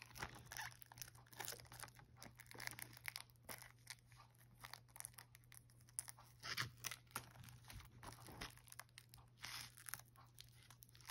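Faint crinkling and clicking of a shrink-wrapped Blu-ray case being handled and turned over, in many short irregular crackles over a steady low hum.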